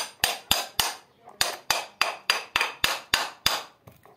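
Electric fan turning with a sharp, regular knocking, about three to four knocks a second, that stops near the end. This is the fan's 'ghad ghad' fault noise, which the repairer traces to the blade.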